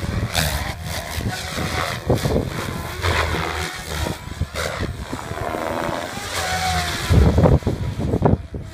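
SAB Goblin 570 electric RC helicopter with a KDE 600XF-530 brushless motor flying hard 3D aerobatics: rotor blades swishing and the motor whining, the pitch gliding up and down with the manoeuvres. Bursts of low buffeting about seven seconds in.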